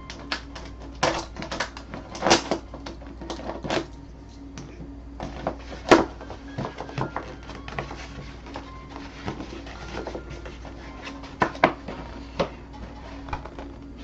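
Irregular sharp clicks and knocks, like objects being handled, over a steady low hum.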